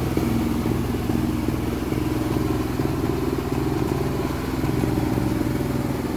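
Engine-driven multipurpose grinding machine running steadily while grinding manure, its small engine chugging at an even pace with a light clatter from the grinder.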